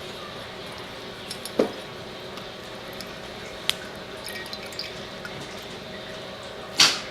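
Herbal infusion dripping from the pressed, strained leaves into a glass jar, with a few sharp taps and a louder clink near the end.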